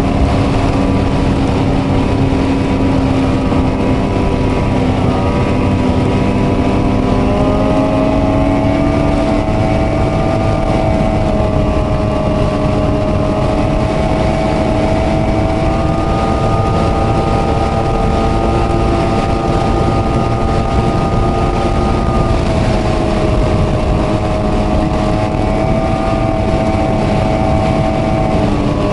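Ski-Doo snowmobile's two-stroke E-TEC engine running at a steady cruising pace on a groomed trail, its pitch rising a little early in the ride, holding, then easing back and dropping off near the end as the throttle is let off.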